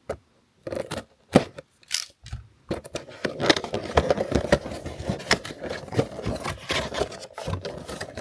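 A cardboard figure box being handled and opened by hand: a few separate sharp taps and clicks, then from about three seconds in a continuous scraping and rubbing of the packaging, dotted with clicks.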